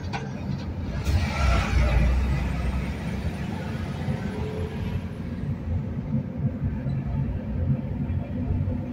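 Inside a moving car's cabin: steady low engine and road rumble, with a louder rush of passing traffic noise about one to three seconds in as a truck goes by alongside.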